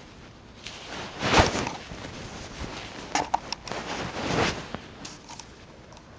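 A sneezing fit: a sharp, loud sneeze about a second in, a few short clicks around three seconds, and another noisy burst of breath near four seconds.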